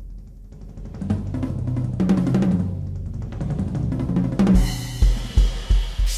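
Triggered drum-kit sounds played from a Yamaha Stage Custom fitted with Jobeky Fast-Fit triggers: a busy fill of rapid tom and snare strokes, then a crash cymbal about four and a half seconds in over a run of bass drum kicks.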